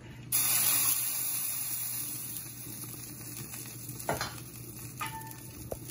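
Food hitting hot oil in a cooking pot: a sudden loud sizzle that starts just after the beginning and slowly dies down. A couple of short knocks of a utensil against the pot come later on.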